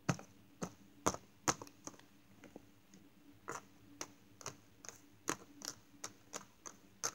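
Light, irregular tapping clicks, about two a second, over a faint steady hum: the mystery noise a toy character then asks about in the dark.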